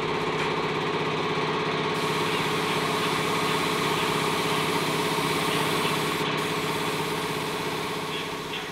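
An engine running at a steady pitch, with an even hum and no revving, fading out near the end.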